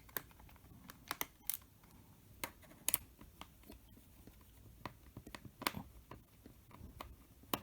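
Irregular small clicks and ticks of a small screwdriver working a screw out of a Dell Latitude E7470 laptop's bottom cover.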